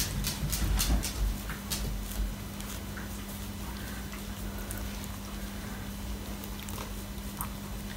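Faint handling sounds of fingers rubbing and teasing apart a knot in a Havanese dog's long coat, with a run of light clicks over the first two seconds, then quieter rubbing over a steady low hum.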